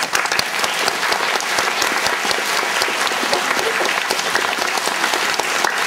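A hall full of schoolchildren applauding: many hands clapping in a dense, steady patter.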